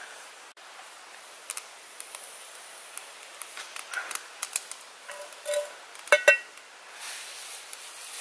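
Damp wood crackling and hissing as it burns in a small metal camp stove, with scattered small snaps. About six seconds in, a sharp metallic clank rings out as a frying pan is set on the stove, and the hiss grows louder after it.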